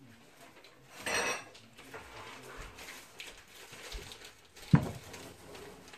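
Pie pan being handled and turned on a cloth-covered table as a crust edge is crimped by hand: a brief clatter about a second in, then one sharp knock of the pan against the table about five seconds in.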